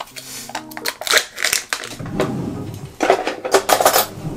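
Foil lid peeled off a plastic yogurt cup with a crinkling rustle, then a metal spoon scooping thick Greek yogurt out of the cup, with sharp scrapes near the end. Soft background music with plucked notes underneath.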